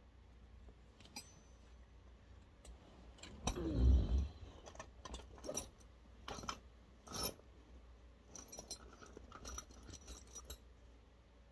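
Small metal parts being handled during disassembly: scattered clicks and light metallic clinks, with a louder knock and rustle about four seconds in.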